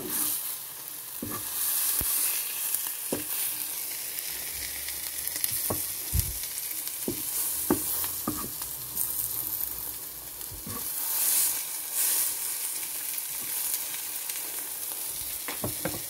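Vegetable omelette sizzling steadily in a frying pan. A wooden spatula scrapes and knocks against the pan now and then, with a cluster of knocks near the end.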